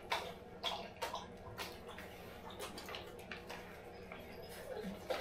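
Light, irregular clicks and taps of hands working over a tray of soil blocks, sowing seeds by hand, over a faint steady hum.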